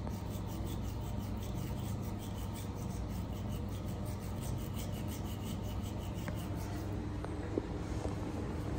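Toothbrush bristles scrubbing a baby monkey's teeth with quick strokes, a scratchy rub several times a second that fades off after about five seconds.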